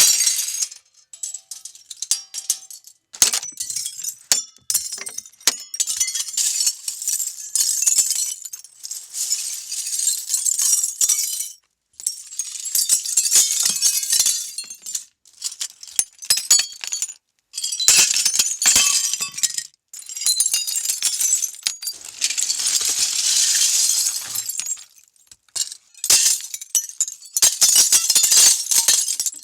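Glass breaking and its shards crunching and clinking, in many short crisp bursts with brief pauses between them. One longer run of crunching comes about two-thirds of the way through.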